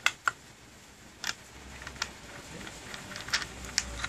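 Scattered small clicks and taps as an abrasive grinding disc is seated on a Bosch 100 mm angle grinder's spindle and the metal flange nut is fitted over it by hand, two sharp clicks coming close together at the start.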